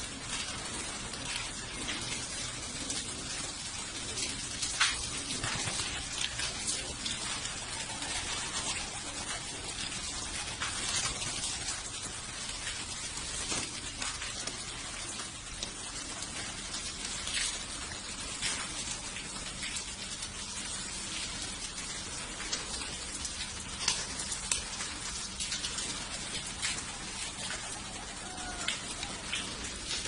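A large flock of domestic pigeons bustling in a loft: a steady noisy rustle of wings and movement, full of sharp clicks and wing claps.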